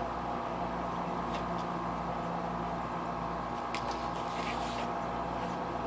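Steady hum of a small electric motor, such as a room fan, running throughout. A few faint ticks and rustles come about a second and a half in and again around four seconds, as stick-on lure eyes are picked off their sheet with a metal pick tool.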